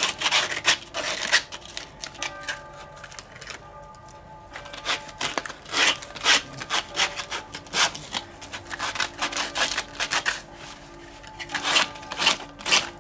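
Hand sanding of a weathered timber beam with sandpaper on a sanding sponge: quick back-and-forth scraping strokes, about two to three a second, in three runs with two short pauses between them.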